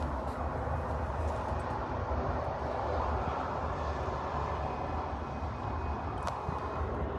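Steady low rumble of nearby running machinery, like an idling engine or a large cooling unit, holding even throughout, with a faint click or two.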